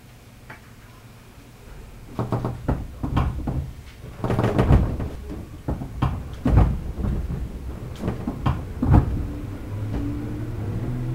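JR East 211 series electric train car: a run of heavy, irregular clunks and knocks, then near the end the traction motor's whine begins and rises in pitch as the train starts to move off.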